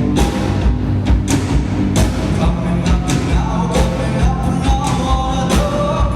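Live rock band playing: drum kit keeping a steady beat of about two hits a second under bass and guitar, with a sung vocal line over it.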